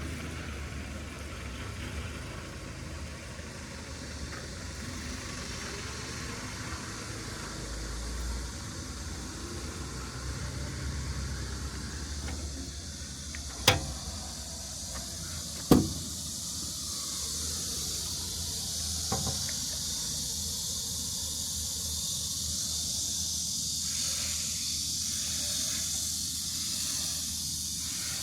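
100 kW Yuchai YC4A140L-D25 diesel generator set running steadily inside its soundproof canopy: a low even hum under a hiss of moving air. Two sharp knocks about two seconds apart come midway, and a fainter one a few seconds later.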